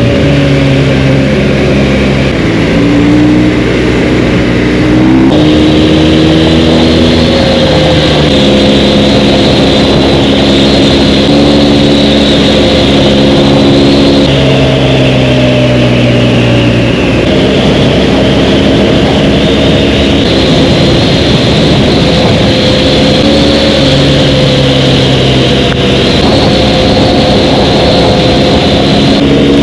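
Motorcycle engine running at road speed, its note holding steady for a few seconds and then shifting up or down as the throttle changes, under loud wind rush on the microphone.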